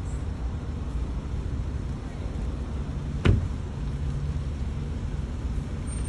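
Steady low outdoor rumble, with one sharp knock a little past halfway.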